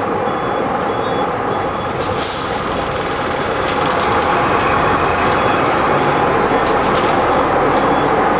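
Bristol VR double-decker bus heard from inside the saloon: its diesel engine running, with light rattles from the bodywork. A short hiss of compressed air comes about two seconds in, and the engine gets louder from about four seconds in.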